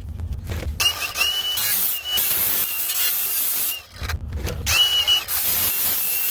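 Angle grinder with a cut-off blade cutting through single-wall metal vent pipe, in two passes with a brief break about four seconds in.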